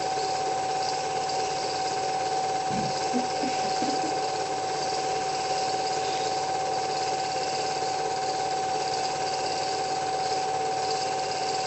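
Cine film projector running: a steady mechanical whirr and clatter with a constant high whine.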